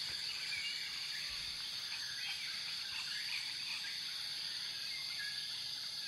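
Nature ambience: a steady high-pitched insect drone with short bird chirps scattered through it.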